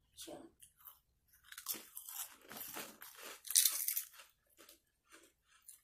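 Cassava chips being bitten and chewed: a run of irregular crisp crunches, loudest about three and a half seconds in.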